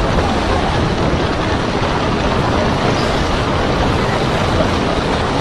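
Steady, loud rush of storm wind and breaking sea, heard from inside a ship's bridge as heavy spray sweeps over the bow and windows.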